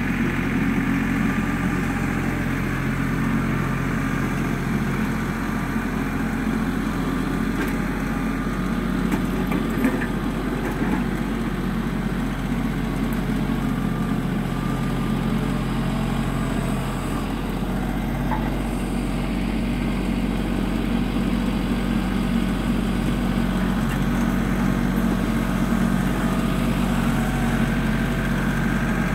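Compact LS tractor's diesel engine running at a steady pace as it drags a box blade over dirt.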